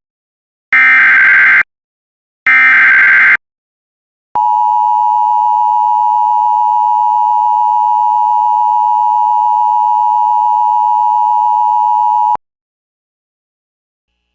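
Emergency Alert System tones. First come two short bursts of buzzy, warbling digital data, the end of the alert's SAME header. After about a second's pause, a steady, piercing attention tone sounds for about eight seconds and cuts off suddenly.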